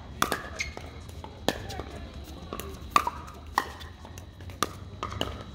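Pickleball paddles hitting a hard plastic ball in a doubles rally: sharp hollow pops about a second apart, some with a brief ring, with fainter pops from other courts.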